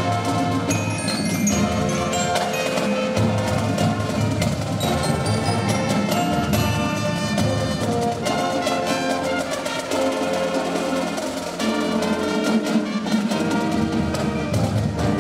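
Marching drum corps playing its show music: brass ensemble over marimbas and other mallet percussion from the front ensemble.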